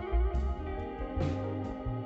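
Instrumental music led by plucked guitar over low bass notes, with no voice.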